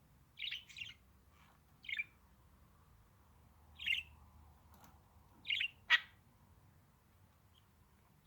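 Budgerigar giving short chirps in a few separate bouts, about six calls in all, the loudest a sharp squawk about two-thirds of the way through.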